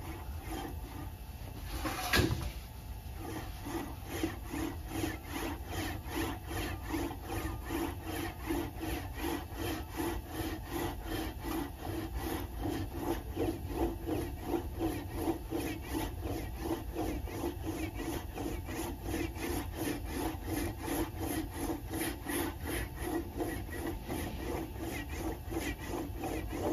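Stakesy's bench-top English wheel rolling a 1.2 mm aluminium sheet back and forth under pressure between its wheel and anvil, in an even, quick rhythm of repeated strokes as the panel is shaped. There is one sharp knock about two seconds in.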